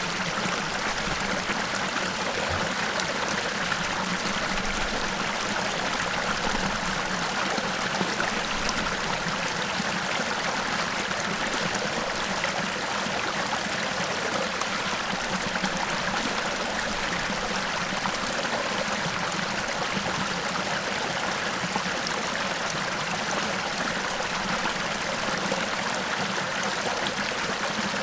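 Small waterfall: water falling and rushing steadily, an even, unbroken splashing roar.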